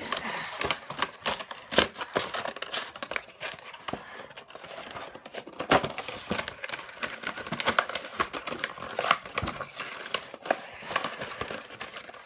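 Packaging of a Pokémon collection box being handled and opened: continuous crinkling and rustling with irregular sharp clicks and taps.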